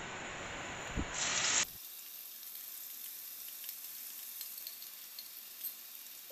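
Onion and masala paste sizzling as it drops into hot oil in a pan, with a single knock about a second in. The sizzle then turns quieter, with light crackles.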